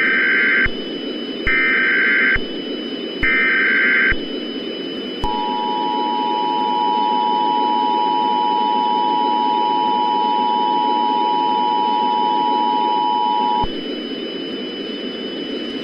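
Emergency Alert System header: three short bursts of buzzy digital data tones, each about a second long, then about a second later the two-tone attention signal, a steady dual tone held for about eight seconds. It is the alert that a new warning is being issued. A constant hiss and a faint high steady whine run underneath.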